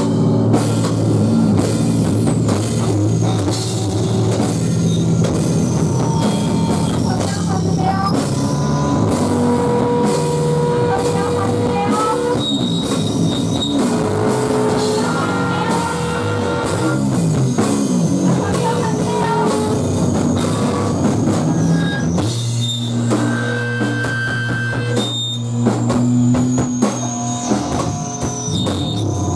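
A loud, noisy live rock band: electric guitars and a drum kit, with held guitar tones that keep shifting in pitch. The sound changes about 22 seconds in.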